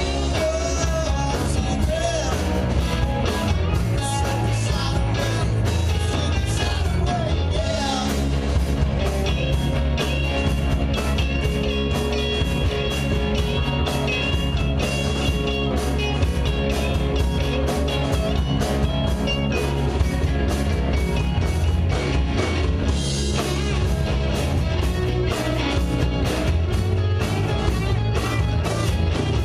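Live rock band playing: electric guitar over bass and drums, with a steady beat and cymbal hits throughout.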